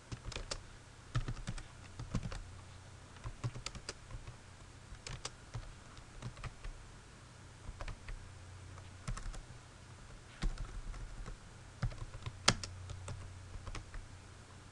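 Computer keyboard being typed on in short, irregular runs of key clicks with pauses between them, over a low steady hum.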